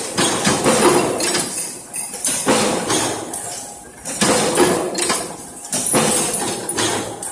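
Mechanical punch presses stamping butt hinge parts: repeated heavy metallic strikes, a stroke every second or two, each ringing off, with metal parts clinking between strokes.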